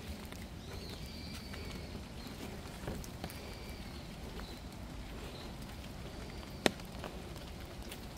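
Soft barefoot footsteps on a damp dirt path, with a few scattered clicks, one sharp click about two-thirds of the way through. Faint, high, drawn-out chirps sound in the background.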